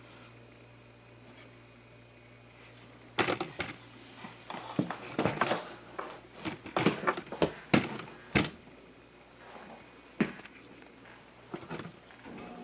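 Footsteps and camera-handling knocks while walking indoors: an irregular run of sharp knocks and clicks starting about three seconds in and thinning out near the end, over a faint steady hum.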